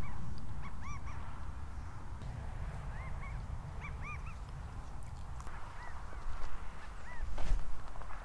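Quail calling: a scatter of short, arched whistled notes, several of them close together, some fainter than others. Under them is a low rumble of wind and movement on the microphone.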